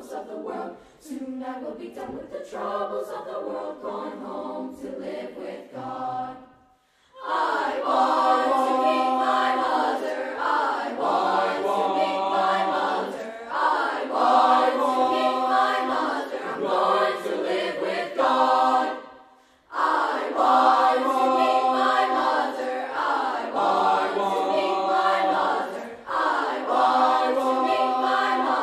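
Mixed youth choir of girls and boys singing a spiritual in full chords. The opening phrases are softer, then the singing breaks off briefly about six seconds in and comes back loud and full-voiced, with another short break about two-thirds of the way through.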